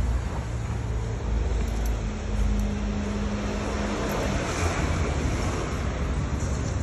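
City street traffic noise: a steady rumble of vehicles, with an engine hum that holds for a couple of seconds mid-way, and wind noise on the phone's microphone.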